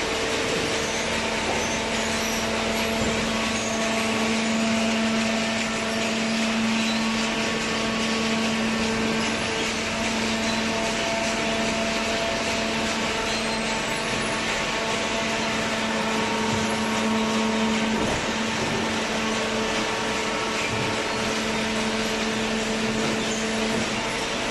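Hydraulic cardboard baler running: the motor and hydraulic pump give a steady mechanical hum with a droning tone that drops out briefly about three-quarters of the way through and then returns.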